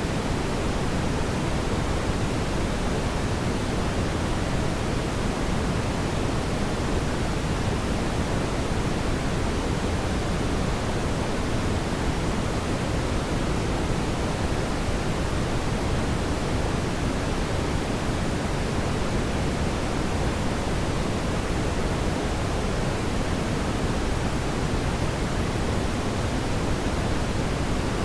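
Fire burning in a fireplace: a steady, even low rushing noise with no separate crackles or pops.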